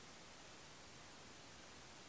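Near silence: a faint, steady hiss with no distinct sounds.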